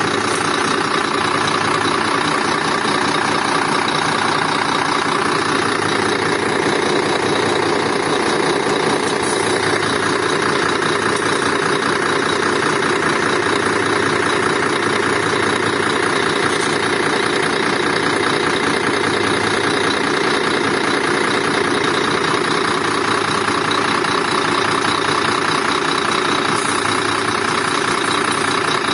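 Truck diesel engine running steadily at idle, on a truck with gearbox trouble.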